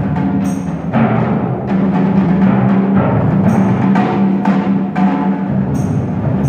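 Percussion ensemble playing, with timpani holding steady low notes under drum strokes that come roughly once a second, some with short bright accents.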